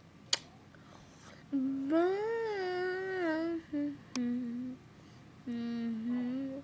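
Held vocal notes in a low, humming register, five separate notes over several seconds, one of them sliding up and back down. Two sharp clicks are heard, one near the start and one about four seconds in.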